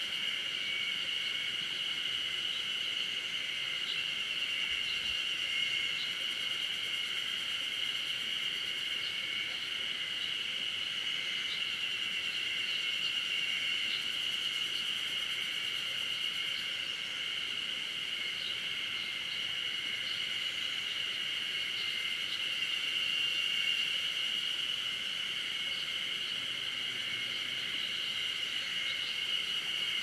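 Steady high-pitched shrill of insects in summer forest, holding one even pitch throughout, with faint short chirps scattered above it.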